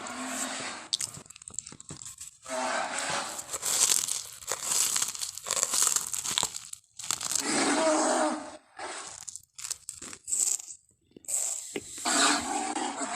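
Animal-like vocal sound effects for a Doedicurus: noisy, crackling grunts and rasps in about five bursts of one to four seconds each, with short pauses between them.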